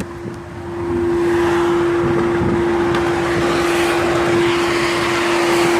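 Steady, loud single-pitch buzzing hum from a Renault Kadjar's rear speakers, a fault of the R-Link 2.0 multimedia system that carries on with the engine stopped. A broader rushing car noise swells under it about a second in.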